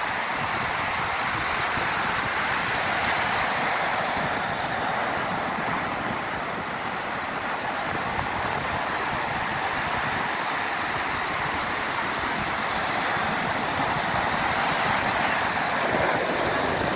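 Surf breaking close by and washing up the sand in a steady rush of white water.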